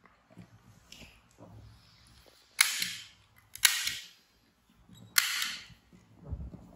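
Three sharp snaps, the second about a second after the first and the third a second and a half later, each trailing off over about half a second, over faint rustling of cloth.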